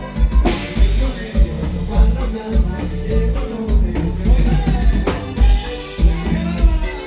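Live norteño band playing with a lead singer over a steady, thumping bass beat.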